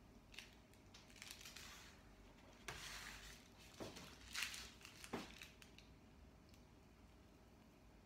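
Faint crinkling and rustling of a plastic piping bag of buttercream being handled and squeezed, in a few short bursts in the middle, otherwise near silence.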